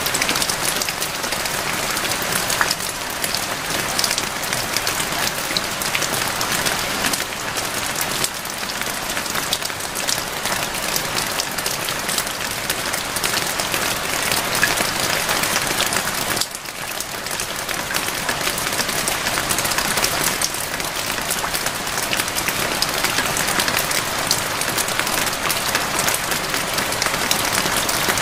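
Steady heavy rain: a dense, even hiss of countless drops, with a brief dip in level about halfway through.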